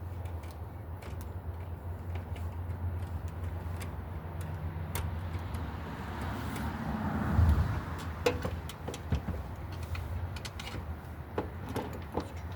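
Steady low rumble with a vehicle passing, swelling to its loudest about halfway through and then fading. In the second half come scattered light clicks and taps of hand tools and wire being handled.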